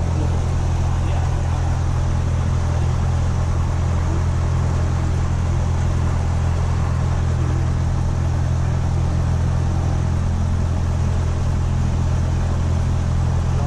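Cessna 172 SP's four-cylinder Lycoming IO-360 engine and propeller running steadily at taxi power, heard from inside the cabin as an even, low drone with no change in pitch.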